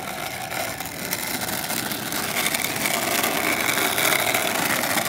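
Skateboard wheels rolling over asphalt: a steady rough rumble that grows louder about two seconds in.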